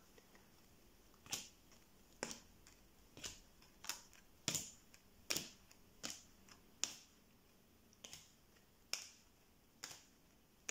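Neapolitan playing cards dealt one at a time from the deck onto a cloth-covered table, each landing with a sharp snap, about one a second, starting about a second in.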